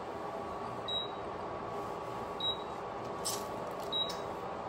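A short high electronic beep repeating about every one and a half seconds over a steady background hum, with a brief sharper noise a little past the middle.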